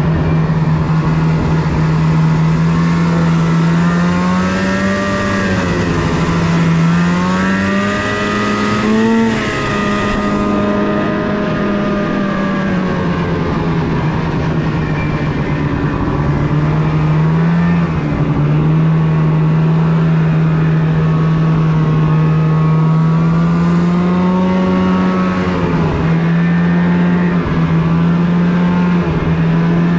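Snowmobile engine running under steady throttle while the sled is ridden. Its loud engine note rises and dips gently several times as the throttle changes.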